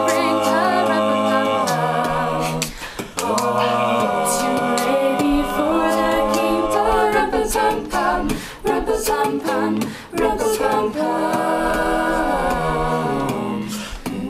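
A cappella vocal group singing held chords in close harmony, with no instruments, changing chord every second or two.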